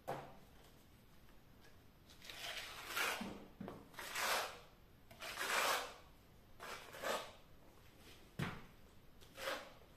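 Metal plastering knife scraping and smoothing wet plaster on a wall in a series of short strokes, about one a second, with a sharp knock late on.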